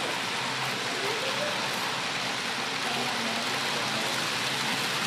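Steady, even background hubbub of a large indoor mall, with faint distant voices.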